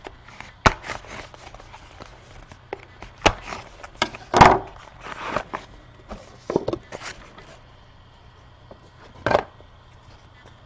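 A small cardboard trading-card box being handled and opened with a knife. There are scattered clicks, taps and short scraping rustles through the first seven seconds, then one more scrape about nine seconds in.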